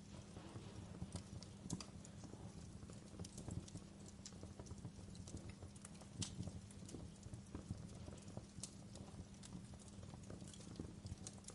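Wood fire crackling in a fireplace: irregular sharp pops and snaps, several a second, over a steady low rumble of burning.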